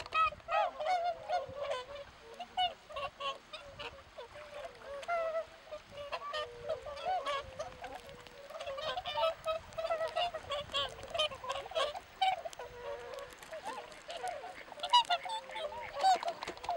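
A flock of whooper swans calling, many overlapping calls one after another, with a louder cluster of calls near the end.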